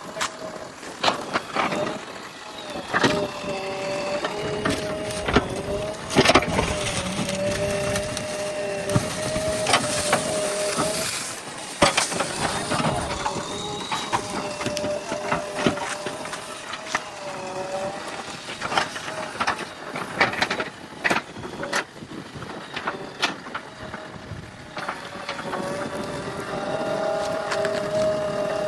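JCB backhoe loader working: its engine runs under load with a whine that shifts a little in pitch, over repeated sharp knocks and cracks as the machine breaks and moves material.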